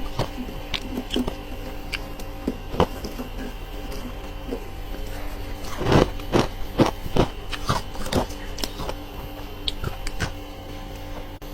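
Close-up crunching of freezer frost ice being bitten and chewed, in scattered crisp crunches with a run of louder bites about six to seven seconds in. A steady low hum runs underneath.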